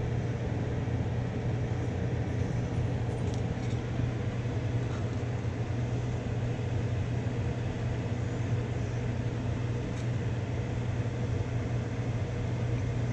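Steady droning hum of a fan or motor with a strong low tone, unchanging throughout, with a few faint light clicks of the spatula against the frying pan.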